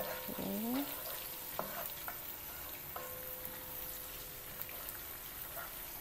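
Sliced garlic, shallots, green chillies and chilli flakes sizzling in hot oil in a wok, with a spatula scraping and tapping against the pan as it is stirred. A short rising squeak about half a second in.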